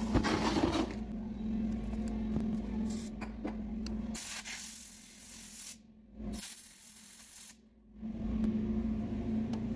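Hissing spray of aerosol parts cleaner, then two long blasts of compressed air from a blow gun, cleaning a chainsaw's spark arrestor screen.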